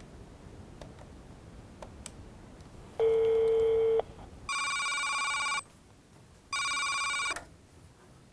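Faint ticks, then about three seconds in a steady tone lasting about a second, followed by a landline telephone's electronic ringer ringing twice, each ring about a second long.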